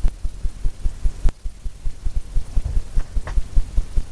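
Fan brush tapping loaded oil paint onto a stretched canvas to dab in waves. The canvas gives quick, uneven low thumps, several a second, with a couple of sharper clicks.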